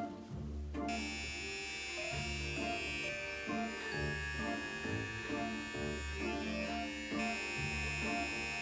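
Background music with a steady beat. A steady, high electric buzz of hair clippers running starts about a second in and lies over it.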